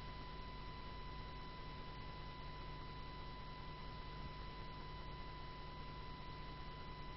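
Steady electrical hum and hiss in the recording, with a faint thin high whine held on one pitch and no other sound.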